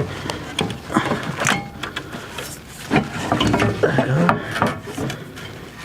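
Scattered sharp clicks and knocks of a plastic EVAP canister and its fittings being handled and fitted into place under a car, with a brief voice-like sound a little past the middle.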